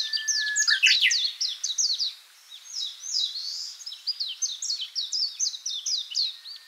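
Birds chirping and singing: many quick, high, repeated chirps overlapping, with a brief lull about two seconds in.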